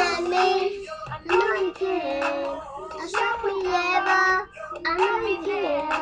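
A young girl singing, her voice held on notes in short phrases with brief pauses between them.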